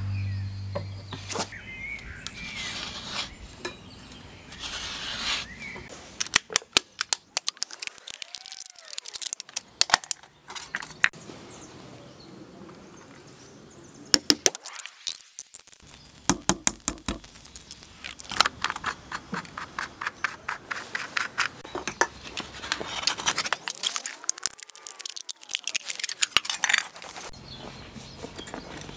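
Aluminium drink can being worked by hand with small tools (a pin at its base, a craft knife scoring around its side): several bursts of quick clicks and scraping.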